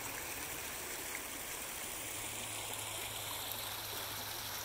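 Water running steadily over rocks in a small backyard stream, an even rushing trickle.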